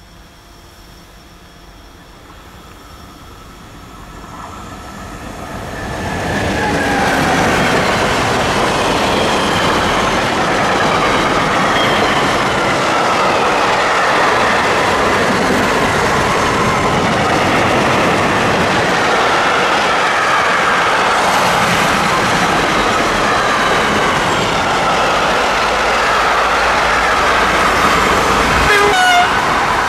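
Long container freight train approaching and passing: the rolling noise of wheels on rails grows from faint to loud over the first six seconds, then holds steady. High, drifting squealing tones from the wheels run over it, and a wavering tone comes near the end.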